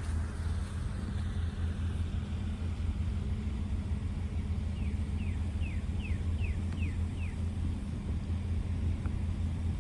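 Steady low engine rumble, like a vehicle idling, with a hum that holds one pitch throughout. About halfway through, a run of seven short, high, falling chirps.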